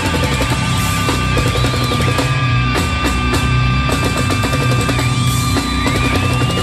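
Heavy metal music playing loudly, driven by a busy drum kit with bass drum, under sustained held tones.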